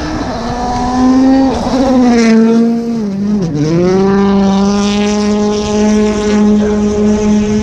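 Rally car engine running hard at high revs. Its pitch dips briefly about a second and a half in and drops sharply near the middle, then climbs back and holds steady.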